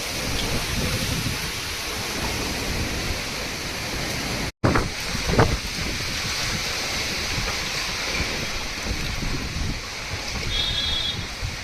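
Storm wind blowing hard with rain, a steady rushing noise with gusts buffeting the microphone. The sound drops out completely for a split second about four and a half seconds in.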